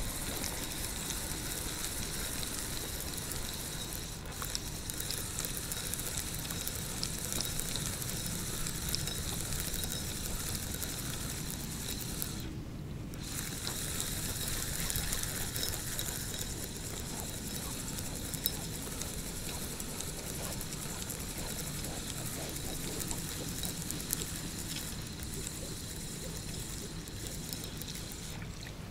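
Steady background hiss with no distinct event; the top end drops away briefly about halfway through.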